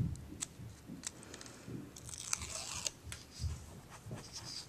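Faint handling of cardstock pieces: a light knock on the work surface, soft taps and clicks, and a short crinkly rustle of paper about two seconds in.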